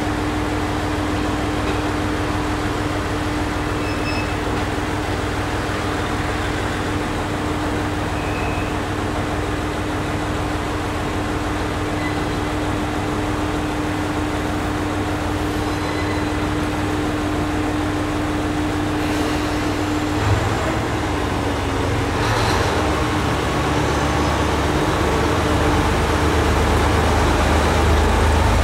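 ET122-1000 'Setsugekka' diesel railcar idling with a steady hum and a held tone. About two-thirds of the way through, its engine note deepens and grows gradually louder as it pulls away from the platform.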